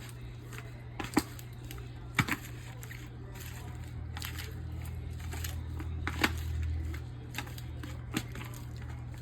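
Gloved hand mixing a mayonnaise-dressed salad in a bowl: soft squishing and rustling, with a few sharp clicks and a steady low hum underneath.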